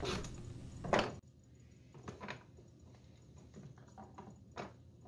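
A marking gauge's knife cutter scraping across a wooden block in a few quick strokes, the last one about a second in the loudest. After that come only a few faint, separate clicks of tools being handled on the bench.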